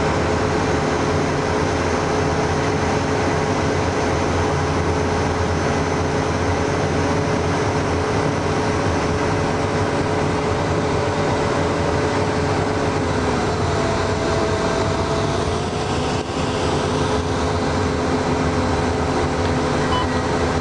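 A Humvee's V8 diesel engine and drivetrain running steadily, heard inside the cabin on the move: a loud, even drone with steady whining tones, some shifting in pitch a little past halfway.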